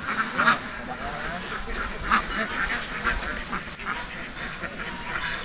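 A large flock of domestic ducks quacking all together in a continuous chorus, with a few louder quacks standing out about half a second in and again around two seconds in.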